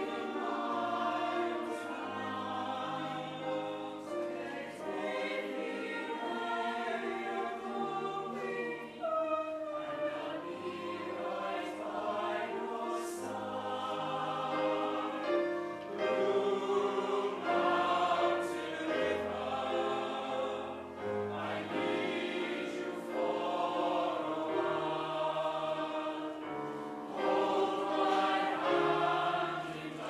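Mixed choir singing a piece in several parts, with long held notes and phrases that swell and fall.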